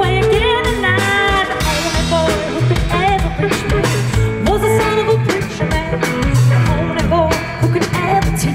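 Live band playing an upbeat soul-rock song: a woman singing with vibrato over electric guitars, ukulele, a bass line and drums keeping a steady beat.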